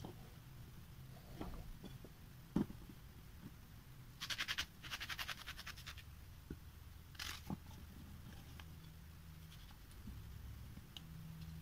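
Small knife scraping and peeling the papery skin of an onion in short bursts of rapid scratching, with one sharp knock about two and a half seconds in.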